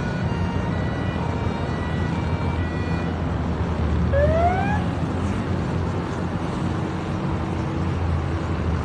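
Emergency vehicle siren rising in pitch once, briefly, about four seconds in, over a steady, dense rumbling noise.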